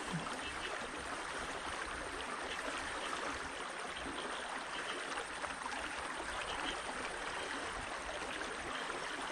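Small stream running steadily over a shallow gravel riffle.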